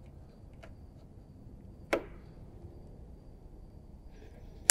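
A hose clamp being worked onto a rubber fuel hose with pliers: a few faint ticks and one sharp metallic snap about two seconds in, with another click at the very end.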